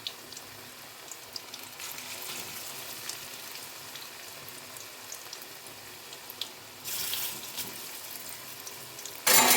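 Onion pakoras deep-frying in hot oil in a kadai: a steady sizzle with small scattered crackles. A brief louder rush of noise comes about seven seconds in, and a sharper, louder one near the end.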